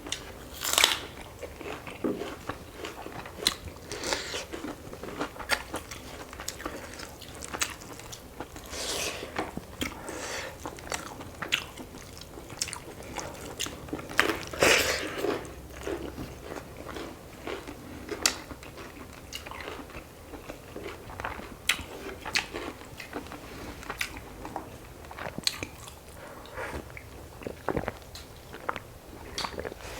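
Close-up eating sounds from a chicken curry and rice meal: irregular bites, crunches and chewing, with a few louder crunches scattered through.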